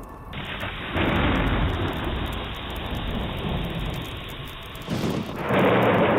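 A dense rumbling noise effect on a film soundtrack, like thunder or a roaring fire, swelling louder about a second in and again near the end.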